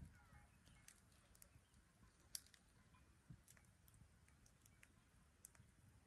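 Near silence with faint, sparse crackling from a wood fire burning in a small portable stove: irregular sharp pops, the loudest a little over two seconds in.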